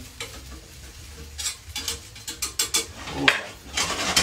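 Potato tortilla frying in a small frying pan with a low sizzle, while a utensil scrapes and taps against the pan in a series of short strokes, most of them in the second half, working the tortilla loose where it is starting to stick.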